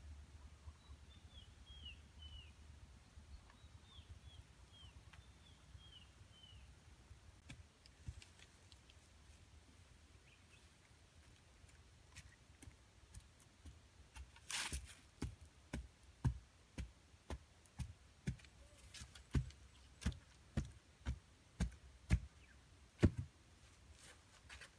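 Faint short bird chirps, then a run of about fifteen hard knocks, roughly two a second, as a wooden stake is pounded into the ground for a stick shelter.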